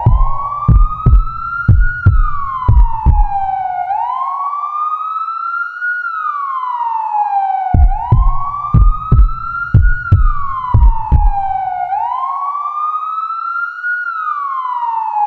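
Emergency alert alarm: a wailing siren tone that rises over about two seconds and falls over two, repeating, starting abruptly. Under the first and third sweeps come runs of low thumps about twice a second.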